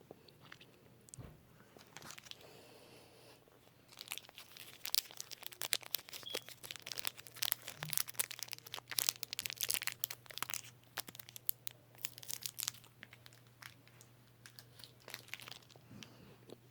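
Plastic Snickers candy wrapper crinkled and torn open close to the microphone: a dense run of sharp crackles from about four seconds in, lasting about nine seconds, then easing off.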